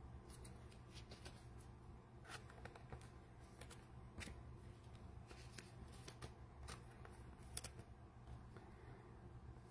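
Faint handling of trading cards: light flicks and clicks of cards being slid and sorted, scattered irregularly.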